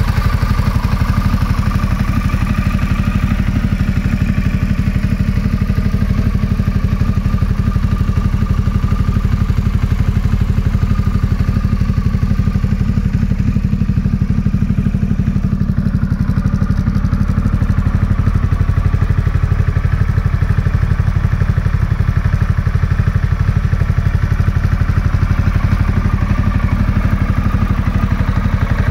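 Harley-Davidson Pan America Special's Revolution Max 1250 V-twin idling steadily through a Screaming Eagle exhaust muffler.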